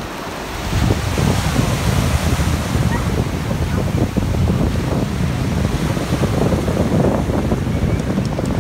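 Small waves breaking and washing over the sand in shallow surf, with wind buffeting the microphone in a heavy low rumble that grows louder about a second in.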